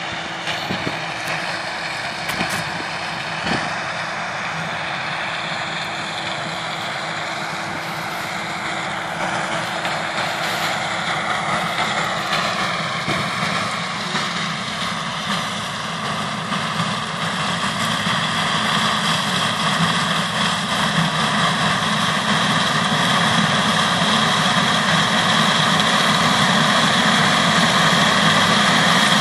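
New Holland TF46 combine harvester running and harvesting corn with its Capello corn header: a steady machine hum with several held tones, growing steadily louder over the second half as the combine comes closer.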